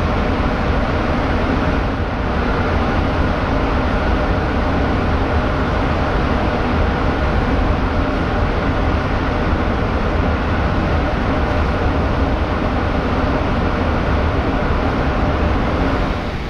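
Steady rumble and hum of a ferry's engines and deck machinery heard on the open deck, with wind noise on the microphone. The level drops a little near the end.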